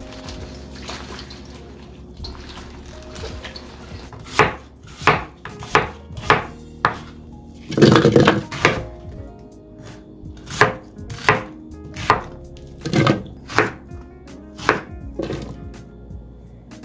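Knife chopping on a cutting board: about a dozen sharp, irregularly spaced strokes beginning about four seconds in, with one heavier chop about eight seconds in.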